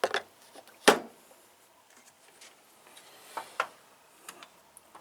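Hand tools being handled in a toolbox: a few sharp clicks and knocks, the loudest about a second in.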